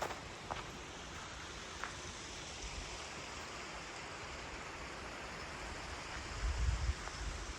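Steady rushing of flowing water, an even hiss like a stream, with a few faint ticks early on and a low rumble of wind on the microphone about six and a half seconds in.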